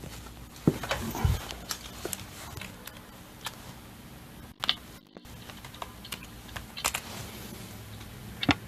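Computer keyboard being typed on in scattered, irregular taps.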